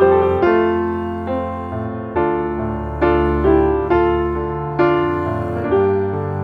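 Background music: piano notes struck about every half second to second, each fading away, over a sustained low bass.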